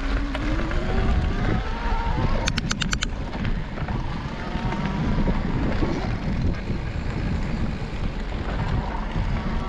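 Mountain bike rolling over a gravel and dirt trail: steady tyre rumble and rattle with wind noise on the bike-mounted microphone. A faint whine rises in pitch near the start, and a quick run of about six sharp clicks comes about two and a half seconds in.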